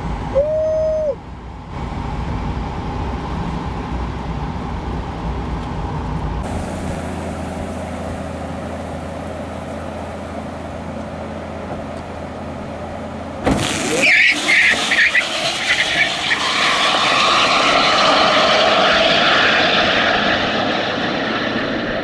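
Rimac Nevera electric hypercar on the drag strip: steady road, tyre and wind noise that turns sharply louder and harsher about thirteen seconds in.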